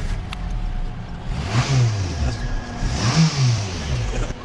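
A car engine revved twice in quick blips, each rising and then falling back, about a second and a half apart.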